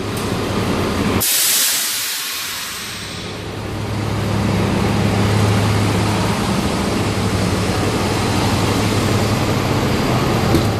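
Air suspension on a Volvo VM truck letting out compressed air: a loud hiss starts about a second in and lasts about two seconds. Under it, and after it, the truck's diesel engine idles steadily.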